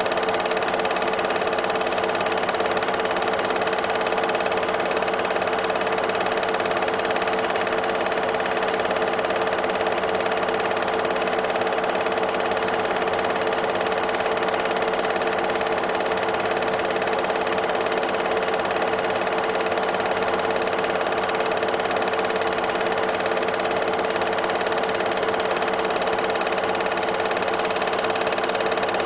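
8mm film projector running steadily: a constant mechanical whir with a fixed hum.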